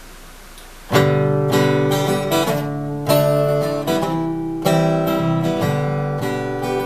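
Epiphone Masterbilt DR-500 acoustic guitar strummed, playing the chord intro of a country song; it starts about a second in with a sharp strum and rings through a series of chord changes.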